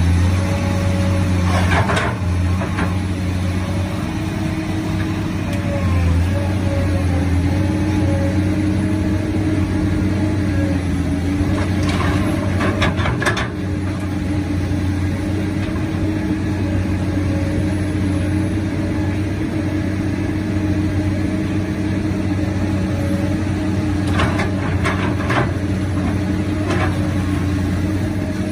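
Heavy diesel engines of excavators and a dump truck running steadily, a low even drone, with a few short knocks a couple of seconds in, around the middle and near the end.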